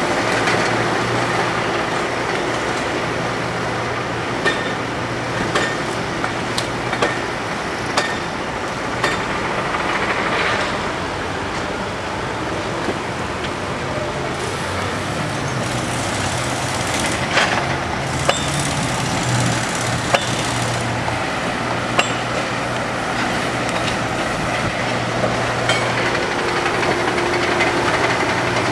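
Diesel engines of track-work machinery (a backhoe, a tracked excavator and a hi-rail truck) running steadily, with short sharp metallic clinks from hand tools on rails and track hardware every few seconds.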